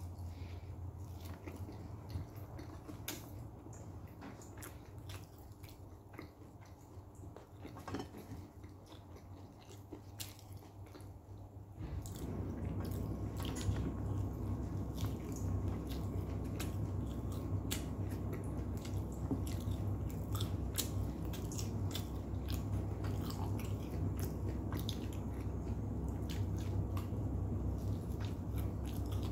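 A person biting and chewing Arabic flatbread (kubos) close to the microphone, with many small wet mouth clicks. About twelve seconds in, a steady low hum comes on and continues underneath the chewing.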